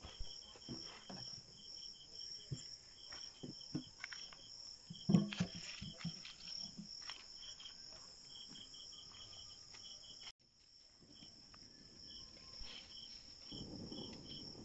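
Crickets chirping at night: a steady high trill with a faster pulsed chirp just below it. Scattered knocks and rustles of handling sound over it, the loudest a sharp knock about five seconds in.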